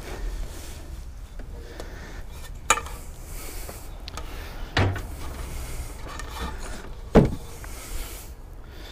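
Aluminum ladder ramp decked with wooden boards being handled and lifted against a truck's tailgate: rubbing and scraping, with three sharp knocks, the loudest near the end.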